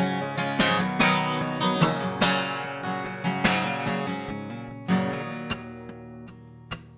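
Acoustic guitar strummed, each chord ringing and fading before the next strum, in an instrumental passage with no singing.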